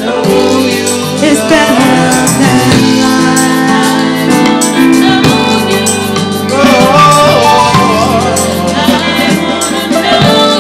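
Live gospel praise and worship music: a band playing sustained bass and chords with cymbal ticks, and a singer's voice wavering over it.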